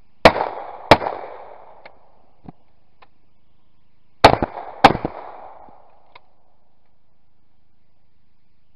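Over-and-under shotgun fired twice in quick succession, the shots about half a second apart, then a second pair about four seconds later. Each shot is followed by a rolling echo that dies away over about a second.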